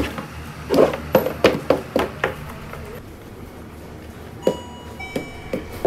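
Wooden rice paddle cutting and turning sushi rice in a wooden hangiri tub: a quick run of about six soft knocks and scrapes of the paddle against the wood about a second in, then a few scattered taps. A faint ringing tone sounds near the end.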